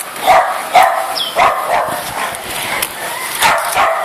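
Dog barking repeatedly in short loud barks.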